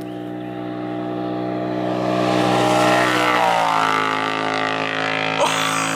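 Straight-piped 2018 Polaris RZR Turbo S side-by-side with an Agency Power race exhaust passing at speed. Its turbocharged twin-cylinder engine grows steadily louder as it approaches, then drops in pitch about three seconds in as it goes by and moves away.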